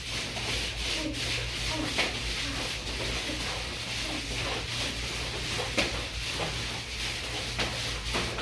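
Frisbees sliding across the floor under people's feet during Frisbee-runner exercises: a continuous rubbing, scraping swish with a few sharper scuffs.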